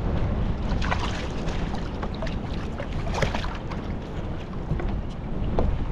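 Wind buffeting the microphone over water lapping at a kayak, a steady low rumble with short crackling splashes, clustered about a second in and again about three seconds in.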